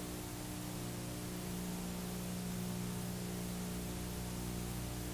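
Steady hiss and a low electrical hum, with faint soft background music.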